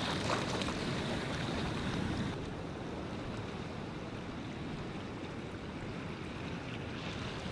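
Steady rushing of wind and sea water, with no clear engine note; the higher hiss drops away abruptly a little over two seconds in.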